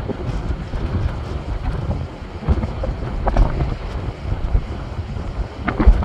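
Sea waves breaking and washing over shoreline rocks, a continuous rushing surf, with heavy wind buffeting on the microphone. There are two louder surges, about three seconds in and near the end.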